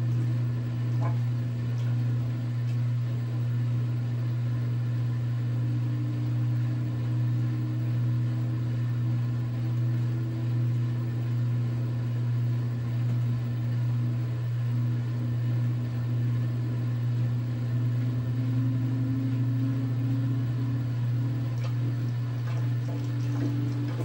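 Direct-drive washing machine running with its drum spinning: a steady low hum that swells slightly about once a second, with higher tones above it that step up in pitch a couple of times.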